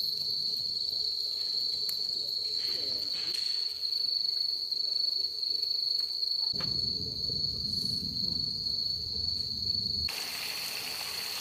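Crickets chirring in one steady, high-pitched tone. A low rumble joins from about six and a half seconds in and stops at about ten seconds.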